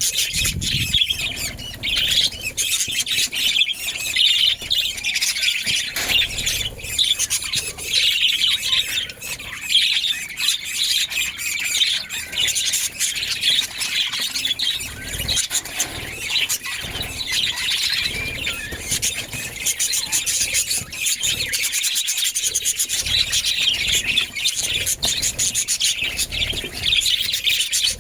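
Budgerigars chirping and chattering without pause, with many small clicks and scratches mixed in.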